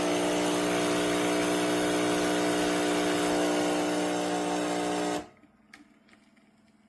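Nespresso Essenza Mini capsule machine's vibratory pump running as it brews an espresso shot: a steady buzzing hum with a hiss, cutting off suddenly about five seconds in as the shot finishes. A few faint clicks follow.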